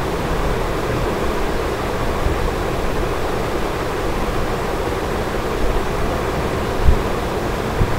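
Steady background hiss, even and unchanging, with a brief low thump about seven seconds in.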